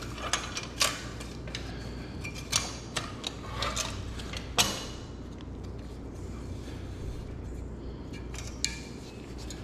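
Pressed-steel Buddy L toy truck parts clinking and knocking as they are handled and set down on a wooden workbench: scattered sharp clicks, the loudest about four and a half seconds in, over a steady low hum.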